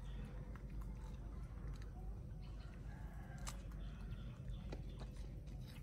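A baby macaque chewing guava, with short, faint crunching and smacking clicks. A faint bird call sounds in the background between about two and three and a half seconds in.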